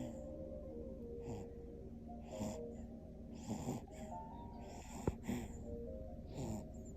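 A newborn baby snoring in her sleep, one noisy breath about every second, over soft background music. A single sharp click about five seconds in.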